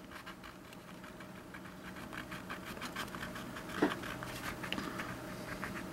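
Yellow wax crayon rubbed back and forth on drawing paper to color in: a quick, even run of dry scratching strokes, several a second.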